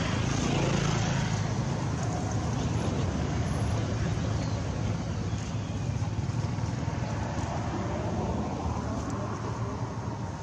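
Steady low rumble of a motor vehicle engine running nearby, easing off slightly near the end.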